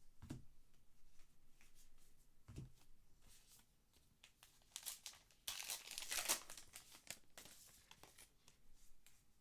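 A trading card pack wrapper crinkling as it is torn open by hand, loudest about two-thirds of the way through. Before that come two soft thumps from cards being handled on the table.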